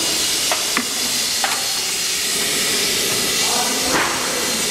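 A steady loud hiss, like escaping steam or air, with a few sharp clicks in the first second and a half and another near the end.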